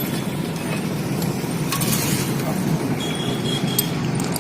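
Hero Splendor Plus 100cc single-cylinder motorcycle engine idling steadily, with a few light clicks.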